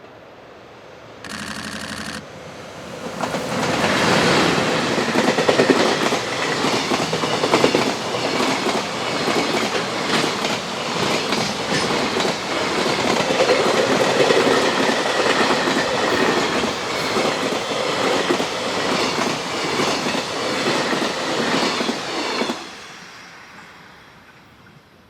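An EH500 electric locomotive sounds a short horn blast about a second in. Its freight train then passes at speed, the wagon wheels clattering rhythmically over the rail joints for about twenty seconds, and the noise cuts off fairly suddenly as the last wagon goes by, then fades.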